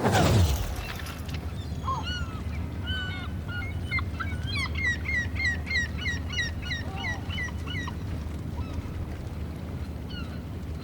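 A loud whoosh sweeps down at the start. Then a flock of birds calls repeatedly over a steady low rumble of wind or water, with a quick run of falling calls about twice a second in the middle.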